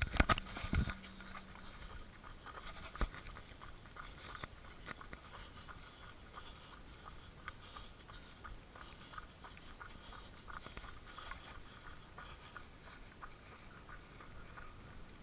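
Faint running footsteps crunching on a gravel track, with handling knocks and rubbing from a hand-held camera, loudest as a cluster of knocks in the first second.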